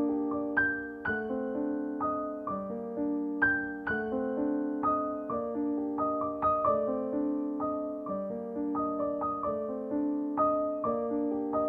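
Background piano music: a gentle melody of struck notes that ring and fade, several notes a second.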